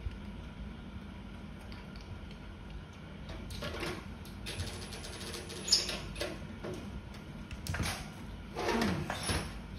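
Metal parts of a gas stove being handled and fitted: scattered clicks, rattles and scrapes against the sheet-metal casing, with one sharp click a little past halfway and a longer scrape with a falling squeak near the end.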